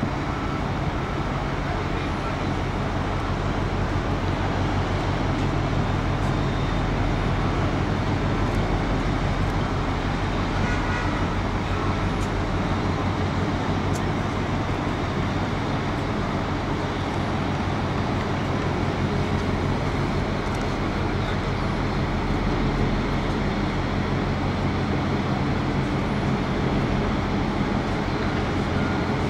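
Steady low mechanical rumble with a fast, even beat in the low end and a haze of noise above it.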